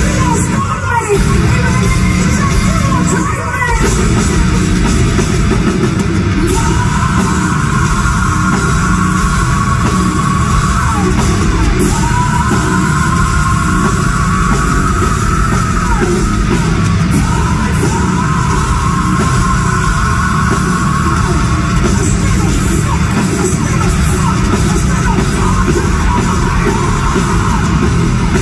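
Live heavy metal band playing loudly in a large hall, with distorted guitars, drums and a singer's voice, recorded from the crowd.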